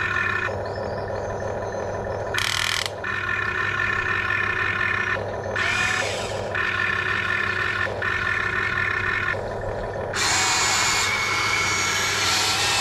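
Huina remote-control excavator's electric motors whining as the boom, bucket and upper body move. The tone shifts several times as different motors start and stop, over a steady low hum, and it turns into a coarser, noisier whir for the last few seconds.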